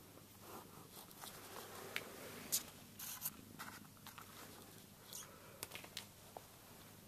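Faint, scattered clicks and rustling as a cat paws at a feather-and-string wand toy on a vinyl floor, with a cluster of sharper taps in the middle.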